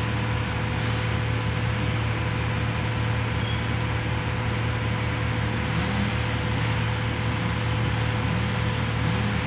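Steady low mechanical hum under an even hiss, unchanging, with no distinct events.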